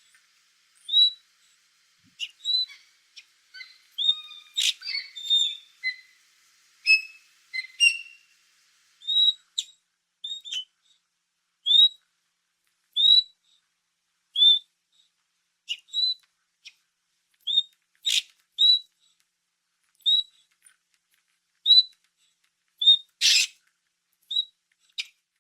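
Otter chirping: short, high squeaks repeated about once a second, with a busier stretch of several overlapping calls a few seconds in and a few sharper, louder calls.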